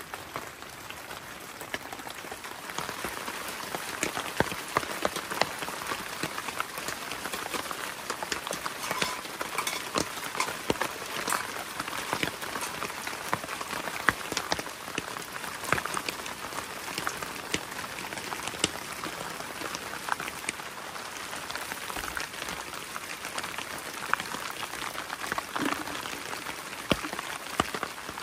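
Rain falling steadily, with many separate sharp drop hits scattered through the steady hiss.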